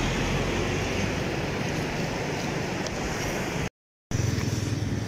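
Road traffic: a pickup truck passes close by, a steady rumbling hiss. The sound breaks off abruptly about four seconds in and comes back as a louder, fluttering low rumble.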